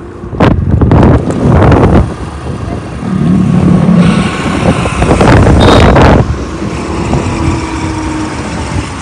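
Wind buffeting the microphone of a phone held up on a moving scooter, with road and engine noise beneath; the buffeting comes in loud gusts through the first two seconds and again from about four to six seconds in.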